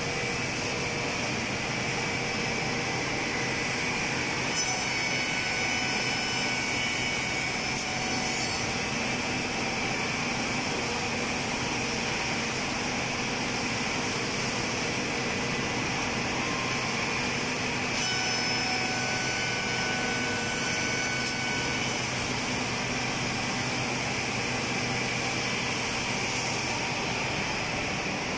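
Woodworking production-line machinery running steadily: motors, cutters and dust extraction making an even din. A faint high whine comes in about five seconds in and again about eighteen seconds in.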